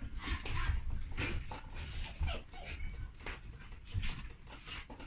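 Samoyed puppy giving a few brief, faint whimpers and yips among scattered light clicks and knocks.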